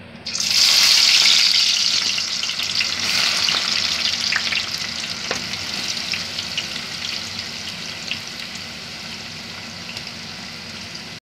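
Sliced red onions deep-frying in hot oil: a loud sizzle that starts suddenly about half a second in as the onions hit the oil, then slowly settles into a steadier, quieter bubbling sizzle with scattered crackles.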